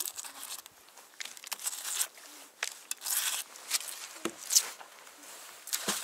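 Gloved hands scraping and rubbing rust and muck off a search magnet, in irregular rustling bursts. Near the end the magnet is thrown and splashes into the water.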